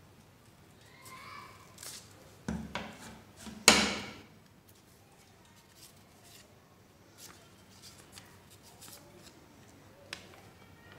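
Sheet of paper being handled and folded by hand, with short rustles and crackles; two louder crackles come about two and a half and nearly four seconds in, then fainter ticks and rustles.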